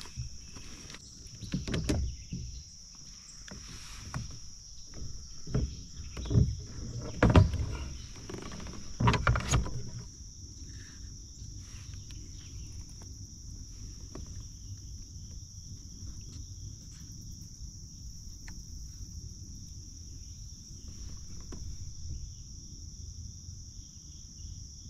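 Knocks and bumps of a freshly caught bass and fishing gear being handled in a fishing kayak, with several sharp thumps in the first ten seconds, then only faint movement. A steady high-pitched insect drone goes on throughout.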